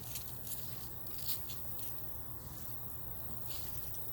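Soft, scattered rustles and crunches from a person moving about, over a steady low rumble.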